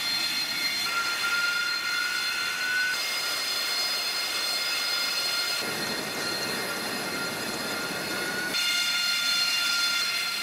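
AV-8B Harrier II's Rolls-Royce Pegasus turbofan running on a carrier flight deck: a steady high-pitched turbine whine of several tones over a rushing noise. The tones shift abruptly a few times, and about six seconds in a deeper rush fills in for about three seconds.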